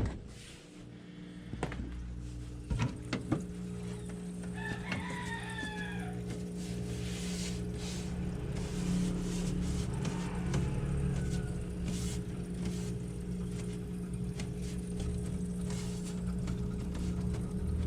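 A rooster crows about five seconds in. Under it runs the steady low hum of the refrigerator's compressor, with a few clicks near the start.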